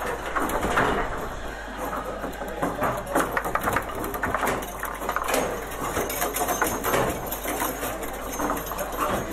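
Table football (foosball) in play: a rapid, irregular run of clacks and knocks as the ball strikes the plastic players and the rods are slid and snapped across the table.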